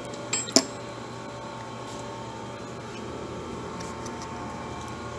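Two light metallic clinks about half a second in, one ringing briefly, as steel tools or parts are handled. Then a steady hum of machines running in the machine shop, with a faint constant whine.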